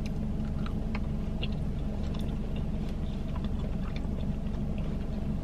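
Close-up chewing of fries, with small wet mouth clicks, over a steady low hum inside the car's cabin.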